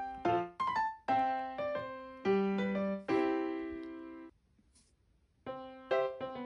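Background piano music: a light tune of struck single notes and chords that die away. It breaks off for about a second a little past the middle, then starts again.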